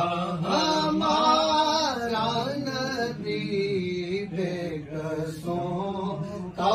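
A man's voice chanting in a sung recitation, with long held notes that slide up and down in pitch.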